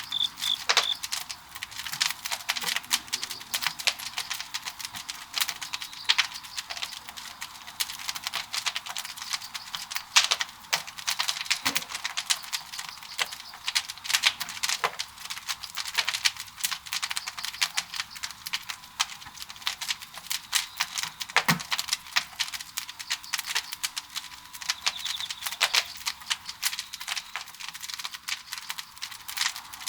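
Firewood burning hard in a traditional Korean wood-fired kiln: dense, irregular crackling and popping over a steady hiss, with a few sharper pops standing out.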